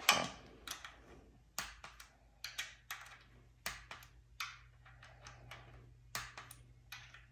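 Sporadic light clicks and taps at irregular intervals, about fifteen in all, from hand tools and metal parts being handled on an engine under assembly.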